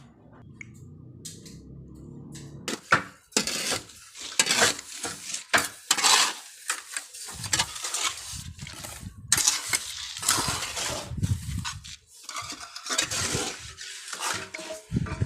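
Irregular clattering, scraping and clinking of hard objects, starting about three seconds in and going on in uneven bursts.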